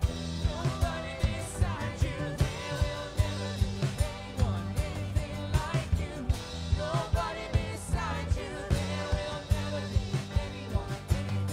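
Live worship band playing a song: voices singing over acoustic guitar, electric bass and a steady drum beat.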